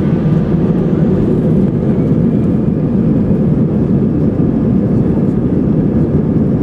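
Steady low rumble in the cabin of an Airbus A320 taxiing onto the runway, heard from a window seat over the wing: the engines running and the wheels rolling, with no spool-up yet.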